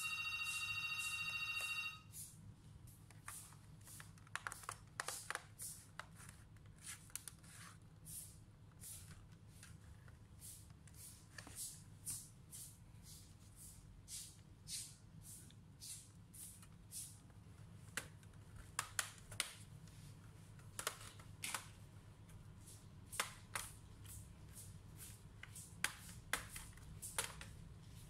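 A steady electronic tone for about two seconds at the start, then scattered light clicks and taps as a laptop's plastic case and screws are worked with a screwdriver and the case is pried open.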